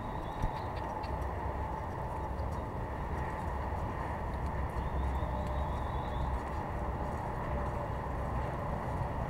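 Horse cantering on a sand arena, its hoofbeats soft over a steady low rumble, with one sharp knock about half a second in.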